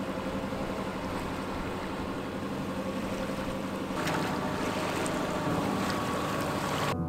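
Sailboat under engine power in tidal rapids: a steady engine hum under the rush of water along the hull, with wind buffeting the microphone.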